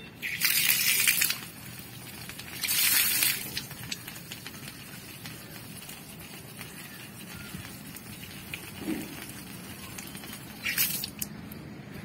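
Water running out of the open outlet valve of a solar water heater's small inlet tank and splashing onto a concrete roof. There are two loud hissing spurts in the first few seconds, a steady quieter splash after that, and another short spurt near the end. The tank is being drained to lower its water level for testing the float valve.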